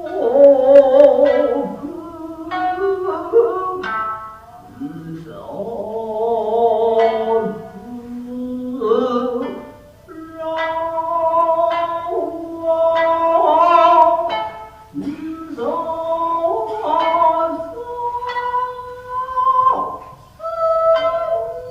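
Japanese traditional dance music: a shamisen plucking sharp notes under a singer's long, wavering held notes.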